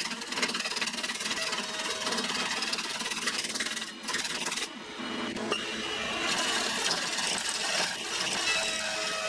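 A woodworking power tool running on wood, a dense mechanical whirring, with a brief break and change about four to five seconds in.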